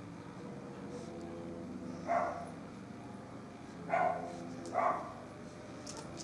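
German Shepherd dog giving three short, soft barks: one about two seconds in, then two close together a couple of seconds later.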